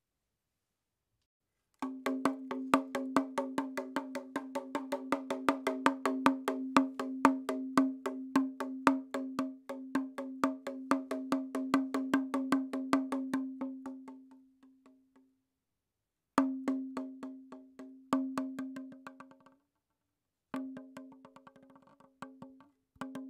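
Background music of rapid wood-block clicks over a held tone, starting about two seconds in, fading out past the middle and coming back twice after short breaks.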